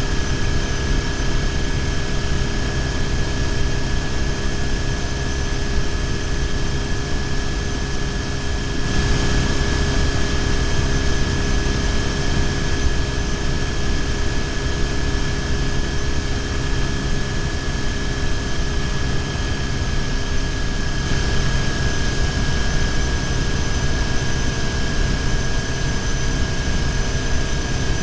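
BMW R1150GS boxer-twin engine running at a steady cruise, heard through heavy wind and road noise on a bike-mounted camera, with a steady high whine running through it. The hiss grows louder for a stretch from about nine seconds in to about twenty-one seconds.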